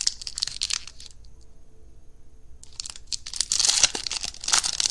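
Foil wrapper of a baseball card pack being torn open and crinkled by hand. It crackles for about a second, goes quiet briefly, then gives a longer, louder spell of tearing and crinkling.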